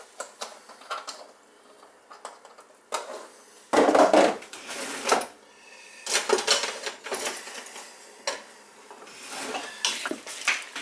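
Clatter and scraping of a soup pot and metal utensils, a string of uneven knocks. It is loudest about four seconds in, with another run of knocks a couple of seconds later.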